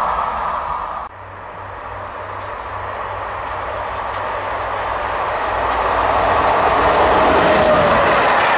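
An Intercités train of Corail coaches hauled by an electric locomotive, approaching and passing at speed. Its rumble and wheel noise grow steadily louder after a sudden drop about a second in, with a falling tone as the train goes by near the end.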